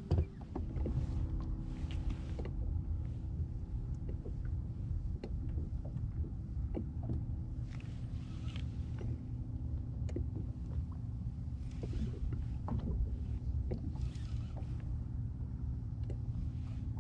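Fishing kayak on open water: a steady low rumble with scattered small clicks and knocks, and a faint steady hum underneath.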